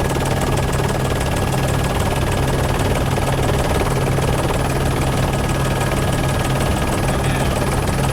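News helicopter's turbine engine and rotor running steadily, heard on board as a constant drone with a strong low hum.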